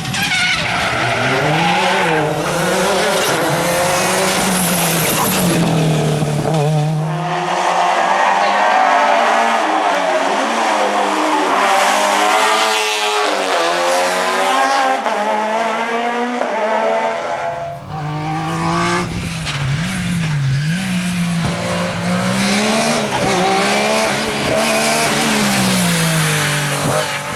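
Historic rally car engine driven hard on a stage, revving up and falling back again and again through gear changes. For a stretch in the middle the deep part of the note drops away, leaving a higher, wavering engine sound, before the full note returns.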